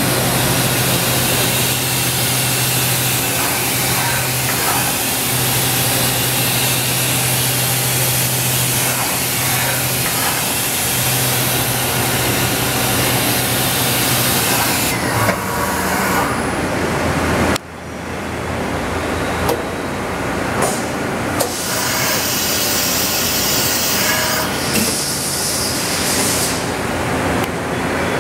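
Steady loud hissing, like rushing air, over a low hum from shop machinery. The hiss cuts off suddenly about two-thirds of the way in, then comes back in patches with a few sharp clicks.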